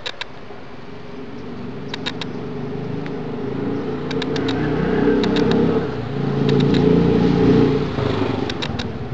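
A motor vehicle's engine going by, growing louder through the middle to a peak and then easing off. Short high chirps come in quick groups of three or four every second or two.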